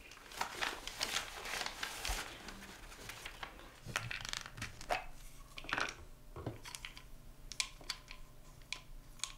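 Plastic prescription pill bottle being handled and opened, its white cap pressed down and twisted off: a scattered run of small plastic clicks and scrapes.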